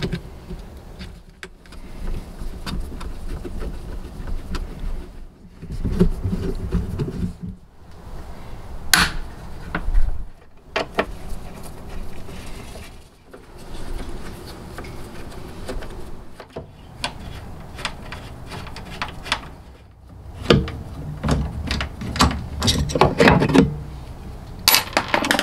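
Hand tools working on a Jeep Wrangler JKU tailgate as its broken check strap is unbolted and pried out: scattered clicks and knocks with rubbing and scraping of metal on plastic. A few sharper clicks stand out about nine and eleven seconds in and near the end.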